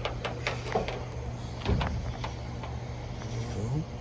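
Keys and small metal parts clinking in a few scattered clicks, the loudest about halfway through, over a steady low hum.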